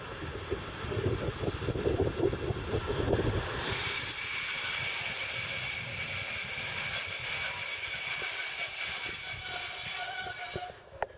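A train rolling into a station: low rumble and clatter of the coaches at first, then from about four seconds in a loud, steady, high-pitched wheel squeal that cuts off suddenly near the end.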